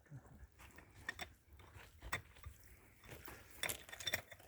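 Faint scattered clinks and scrapes of metal tools and stones being worked, with a small cluster of them about three to four seconds in.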